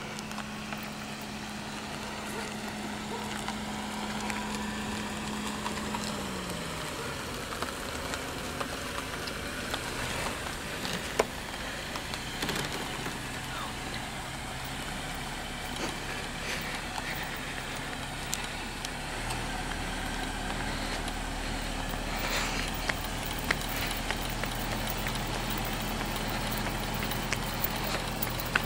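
Cars driving slowly on a paved street: a steady engine hum with tyre noise, one engine tone dropping in pitch about six seconds in, and a few light clicks.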